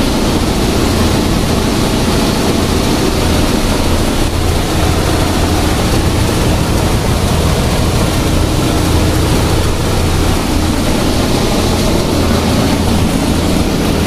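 Steady mechanical running noise: a constant low hum under a broad hiss, with no distinct knocks or clicks.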